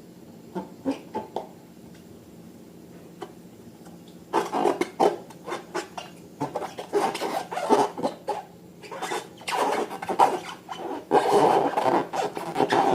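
Slime being squeezed and worked by hand, giving irregular wet squelching and crackling clicks: only a few faint ones at first, then dense and busy from about four seconds in.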